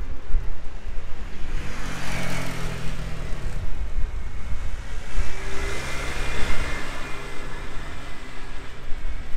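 Street traffic heard from a moving bicycle: two motor vehicles pass close by, the first swelling up and fading about two seconds in, the second around the middle to late part. Under them runs a constant low rumble from riding.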